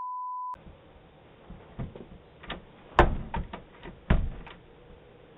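A short censor bleep, then a run of sharp knocks and clicks at a door, heard through a doorbell camera's microphone. The loudest knock comes about three seconds in, followed by a quick cluster of smaller ones.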